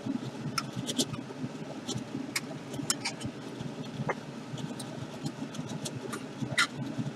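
Spray booth exhaust fan drawing air through its filter: a steady, uneven rumble that sounds like bubbles. Scattered small clicks and taps from handling the paint cans and droppers.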